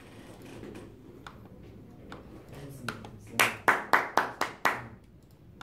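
One person clapping hands, about six quick claps in a row a little past the middle.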